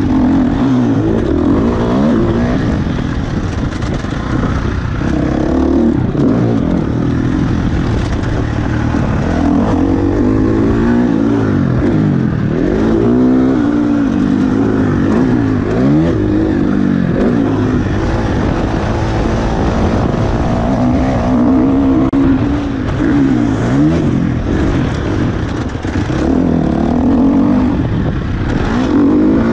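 KTM 350 SX-F's single-cylinder four-stroke engine under riding load, its revs climbing and dropping again and again as the rider works the throttle and gears.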